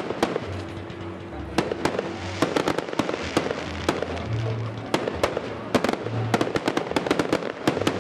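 Aerial fireworks display: shells bursting one after another with sharp bangs and crackling, sometimes in quick clusters. Music with low bass notes plays underneath.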